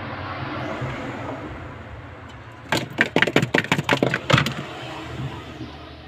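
Hands handling wiring and plastic parts on a refrigerator's freezer evaporator: rustling at first, then about a second and a half of quick, sharp plastic clicks and clacks around the middle as parts are fitted back.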